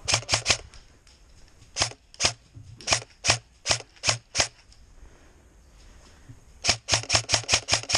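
Airsoft gun firing: a quick triple of shots, then seven single shots about half a second apart, then a fast string of about nine shots near the end.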